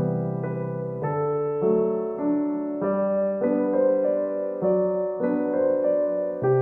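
Background music: a gentle piano or electric-piano tune of sustained chords and notes that change about every half second to second.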